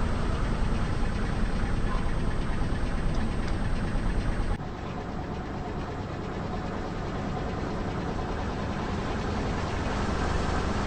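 Car engine running at low speed, a steady low rumble with no distinct crunches; the sound drops abruptly about four and a half seconds in, then slowly grows louder again.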